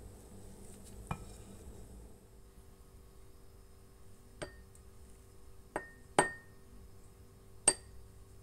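A wooden spoon clinking four times against a small glass bowl as spoonfuls of tapioca starch and flour are tipped in, each clink with a brief glassy ring, the last two loudest. A duller knock comes about a second in.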